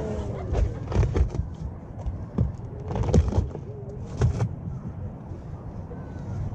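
Giant pumpkin cracking and crunching under an Asian elephant's feet as its rind splits open: a scattering of sharp cracks, the loudest about three seconds in.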